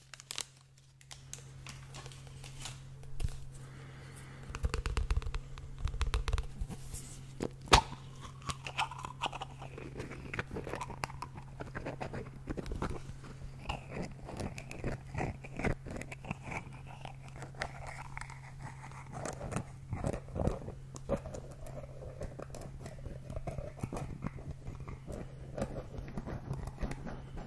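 Fingers handling, tapping and scratching a small plastic container held right against a condenser microphone: a long run of irregular close-up clicks and crackles over a steady low hum.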